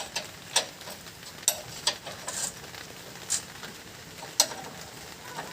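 Irregular sharp metallic clicks and clinks, about seven over five seconds, from hand tools and parts on a truck's suspension.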